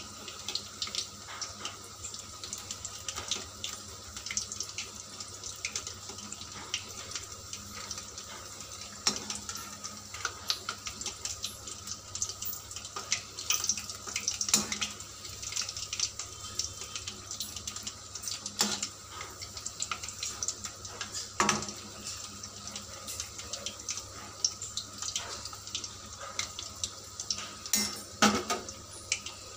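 Onion pakoras in gram-flour batter deep-frying in hot oil in a kadhai: a steady sizzle with frequent crackles and pops.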